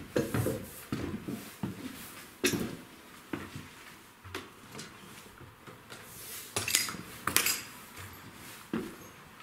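Footsteps on bare wooden stair treads: irregular knocks and clicks, with a few sharper clinks about seven seconds in, like debris scuffed underfoot.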